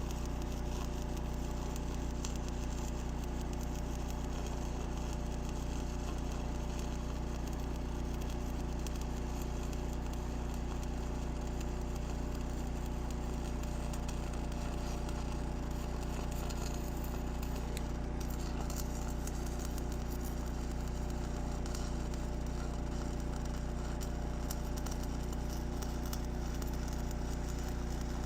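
Welding arc crackling steadily, over the low, even hum of the welding machine.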